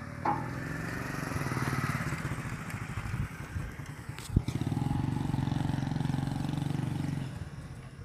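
A motor vehicle engine running close by in two stretches, dipping briefly about halfway with a sharp knock, then dropping away near the end.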